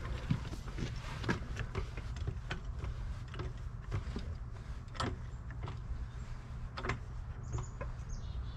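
Scattered light knocks and clicks over a steady low rumble, with a faint high bird chirp near the end.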